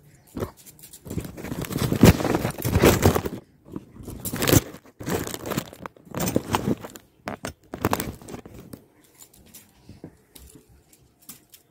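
Close rustling and crinkling handling noise of baby clothes and fabric being moved about as a baby is dressed, coming in irregular bursts that are loudest in the first half and die away near the end.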